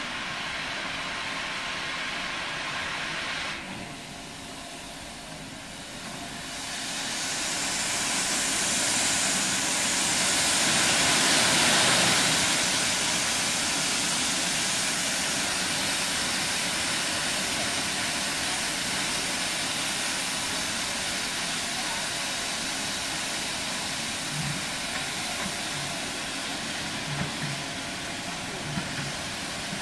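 Steam locomotive venting steam with a loud, steady hiss. The hiss dips briefly a few seconds in, then swells to its strongest about ten seconds in and carries on.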